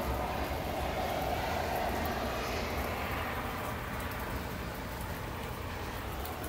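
Rain falling steadily, mixed with the steady rumble and wet-tyre hiss of highway traffic; a louder swell of traffic hiss builds over the first couple of seconds and fades by about three seconds in.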